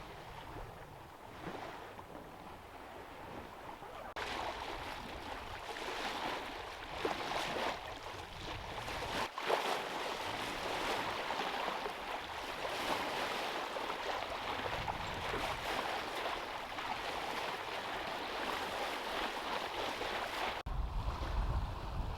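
Water rushing along the hull of a sailboat under way, with wind on the microphone: a steady noise that changes abruptly about four, nine and twenty-one seconds in, with a low rumble in the last second or so.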